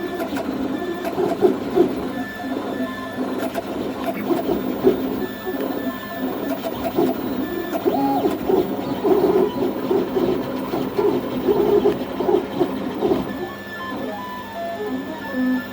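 A MakerBot Replicator 5th-generation 3D printer running a print: its stepper motors whine in a continuous run of short tones that jump in pitch from one moment to the next as the print head moves.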